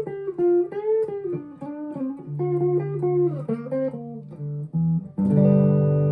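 Electric guitar, a Harley Benton SC-500, played clean through a Fender Mustang LT25 amp with no effects and gain, bass and treble at noon, giving a dark, muffled tone. A picked single-note line with some bent notes, then a chord struck about five seconds in and left ringing.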